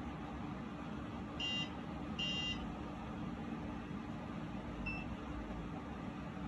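Two short electronic beeps from a small ball-shaped Arduino robot, the first about a second and a half in and the second just under a second later, then a fainter short beep near five seconds, over a steady low room hum.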